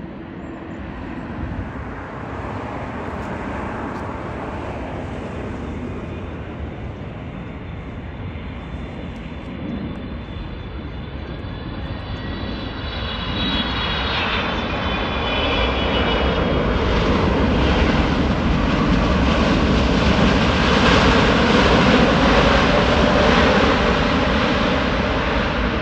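Jet airliner's engines growing steadily louder as the plane passes close by. A high whine slides down in pitch about halfway through, under a broad engine noise that peaks near the end.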